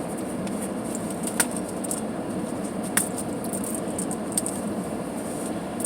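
Gear being handled in a small shoulder bag: light rattling with a few sharp clicks, the clearest about one and a half and three seconds in, over a steady background hum.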